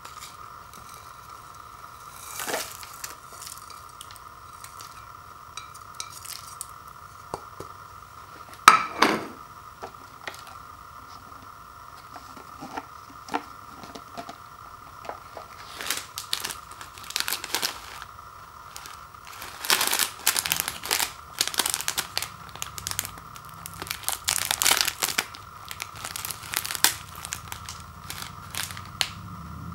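Small plastic dried-vegetable packet from an instant ramen bowl crinkled and torn open by hand, in dense crackly bursts through the second half. Before that, a few sharp knocks of dishes being handled and set down, the loudest about nine seconds in, over a steady faint whine.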